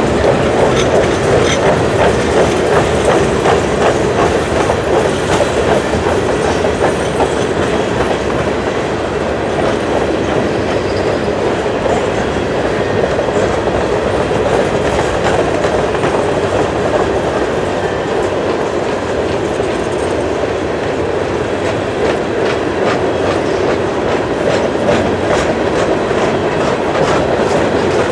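Covered grain hopper cars of a freight train rolling past: a steady rumble of steel wheels on rail, with a running clickety-clack of wheels over the rail joints.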